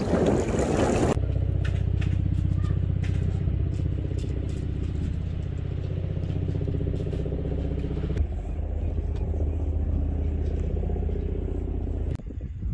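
Wind and surf noise for about the first second, then an abrupt cut to an engine running steadily at an even speed, a low drone that shifts slightly about eight seconds in and cuts off abruptly near the end.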